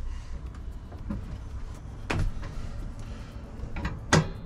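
Van swivel seat base being released and turned, with a few sharp metal clunks and knocks, the loudest about two seconds in and again near the end, over a low rumble.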